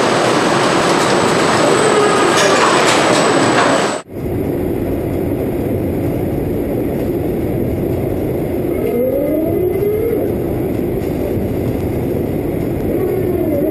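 Loud, steady noise of automated factory machinery with a thin high whistle, cutting abruptly about four seconds in to a lower machine hum. In it an industrial robot arm's motors whine, gliding up and down in pitch about five seconds after the cut and again near the end.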